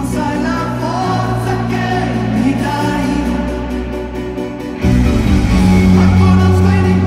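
Live pop band playing in concert: a lead vocal sung over band accompaniment, with the full band coming in louder and heavier about five seconds in.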